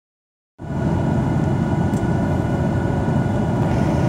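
Steady cabin noise inside a Boeing 737-800 in flight: the rumble of its CFM56-7B jet engines and the airflow over the fuselage, heard from a window seat over the wing, with a faint steady whine above it. The sound starts about half a second in.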